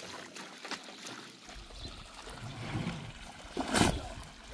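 Water trickling, with one louder brief noise about three and a half seconds in.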